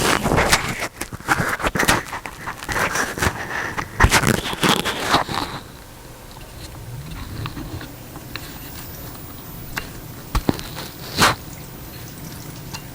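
LG dishwasher running its wash cycle: water spraying and spattering inside, with irregular clicks and crackles. About six seconds in it drops to a quieter, steady wash with a few scattered clicks, and one sharper click near the end.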